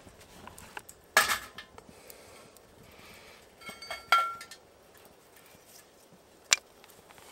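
Metal cookware clatter: a metal frying pan set down onto the folding steel stove, clinking with a short metallic ring about four seconds in. A louder clatter comes about a second in, and a single sharp click near the end.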